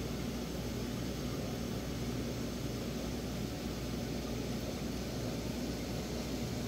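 Aquarium equipment running: a steady low hum with an even hiss over it.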